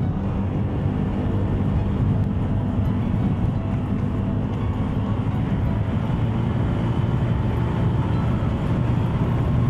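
Motorstar ER150N's 150 cc scooter engine running steadily under throttle as the scooter picks up speed on the road.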